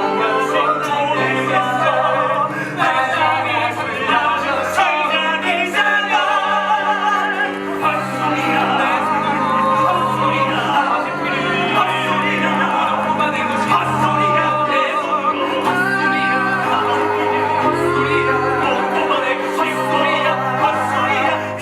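Live musical-theatre number with singing over a band accompaniment, a held vocal line with vibrato over a moving bass line.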